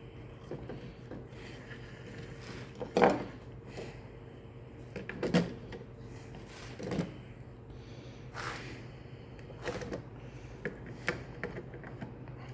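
Scattered knocks, clicks and a rub of chainsaw recoil-starter parts being handled while the new starter rope is threaded through the pulley. The loudest knocks come about three and five seconds in, with lighter clicks later. A steady low hum runs underneath.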